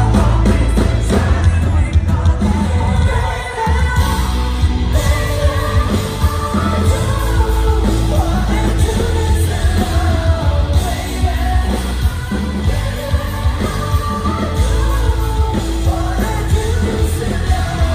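Rock band playing live, with a lead singer over guitars, drums, keyboards and a heavy bass line, at a steady beat.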